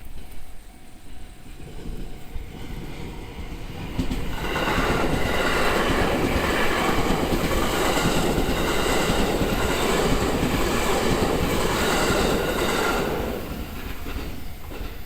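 A train passes over a level crossing. Its rumble builds, is loud from about four seconds in until about thirteen seconds, then fades. Steady high whining tones ride over the rumble while it is loudest.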